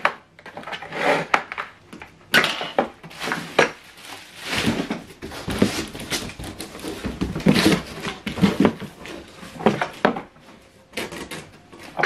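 Irregular knocks, scrapes and rustles of unpacking: the hard plastic body of a Hoover Whirlwind cylinder vacuum cleaner being handled and set down on a table, with its cardboard box and plastic wrapping being moved.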